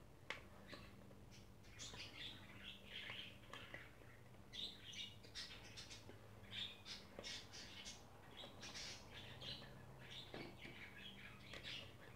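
Faint bird chirping: short, repeated chirps throughout, over a low steady hum, with a light tap about a second in.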